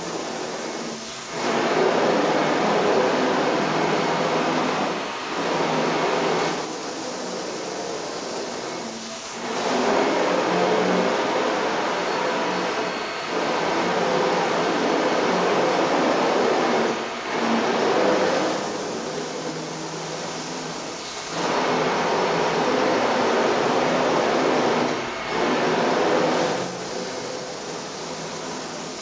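Motionmaster 3-axis CNC router running through its axis moves, its drives sending the table and head back and forth with a steady whirring machine noise. The noise alternates every few seconds between a louder, fuller whir and a quieter, hissier one as each move changes.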